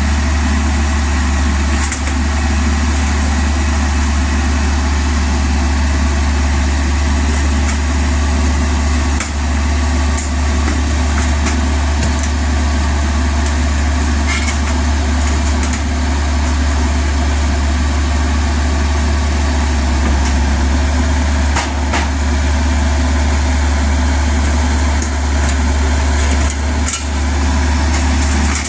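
Kubota U50 mini excavator's diesel engine running steadily as a deep, even rumble, with a few short knocks now and then.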